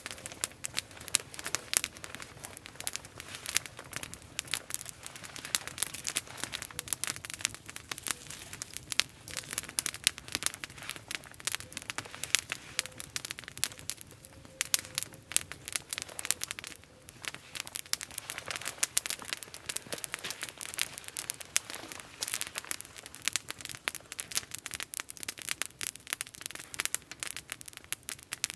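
Small wood campfire crackling and popping, with dense, irregular sharp snaps throughout.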